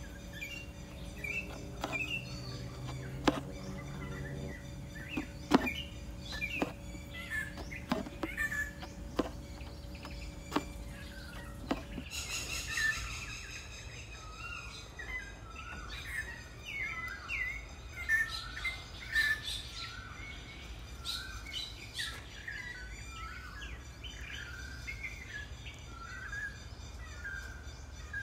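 Small birds chirping with many short, repeated calls. During roughly the first twelve seconds there is also a series of sharp clicks, the loudest sounds here.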